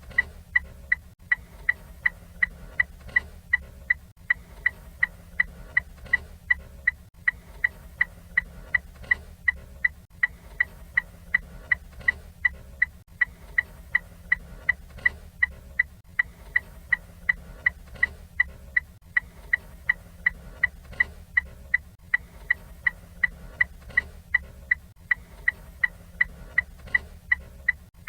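Ford Fiesta turn-signal indicator ticking steadily: a sharp, high-pitched click about two to three times a second, evenly spaced, over a faint low hum.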